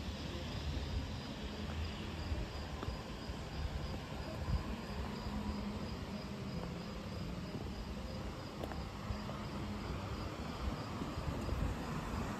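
Crickets chirping, a faint high-pitched chirp repeating at an even pace, over a steady low rumble and hiss.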